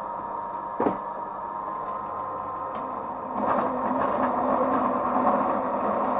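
Power saw running with a steady hum, a single knock about a second in; a bit past halfway its new blade cuts into a thick copper cable and the sound turns louder and rougher.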